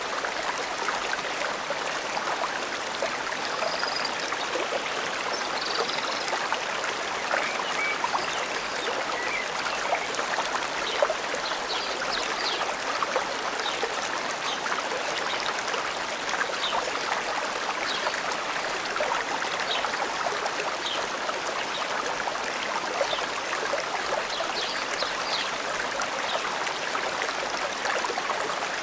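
Forest stream flowing steadily, with faint, short, high bird chirps scattered through it.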